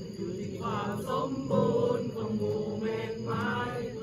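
A group of voices chanting together around a campfire, in short repeated phrases over a steady held tone.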